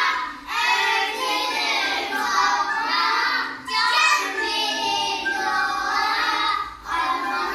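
Young children singing a children's song, in sung phrases with short breaks between them.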